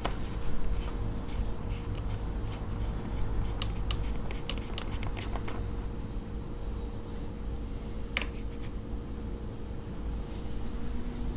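Steady high-pitched trill of insects over a low steady hum, with a few light clicks and taps of hand work between about 3.5 and 5.5 seconds in and one sharper click about 8 seconds in.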